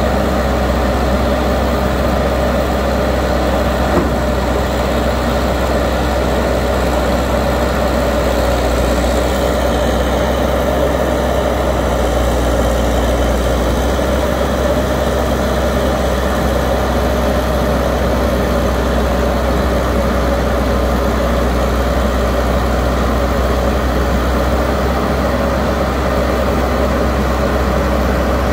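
Caterpillar tracked hydraulic excavator's diesel engine running steadily with a deep, even hum.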